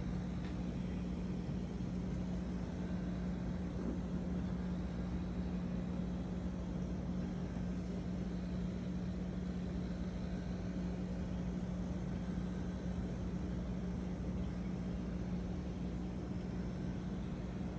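Steady mechanical hum holding one constant low tone, over a faint even hiss.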